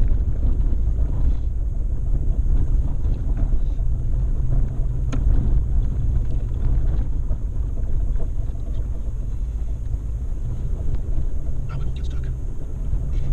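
Off-road vehicle's engine running steadily while driving a rough dirt trail, a deep constant rumble with wind buffeting the microphone and a couple of light knocks from the trail or chassis.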